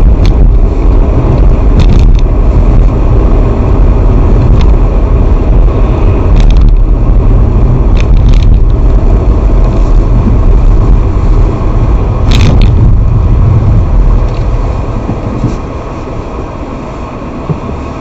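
A car driving along, with a steady low road and engine rumble and a few short sharp cracks. The rumble drops off about three quarters of the way through as the car slows.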